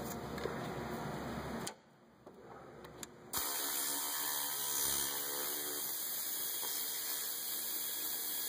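A cordless ratchet runs with a steady whirring hum over a hiss, starting abruptly about three seconds in, as it backs out a radiator-support bolt. One click comes just before it starts.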